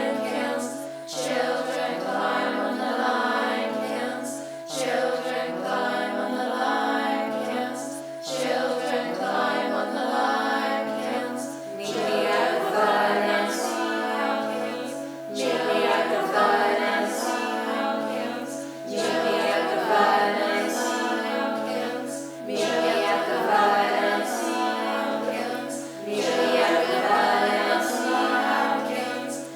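A cappella choir singing a short phrase over and over in layered parts, with a low sung line cycling about every three and a half seconds.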